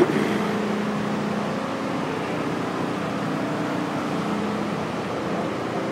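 Fire apparatus diesel engines idling at the scene: a steady low hum over city street noise. A faint held low tone in it fades out about halfway through.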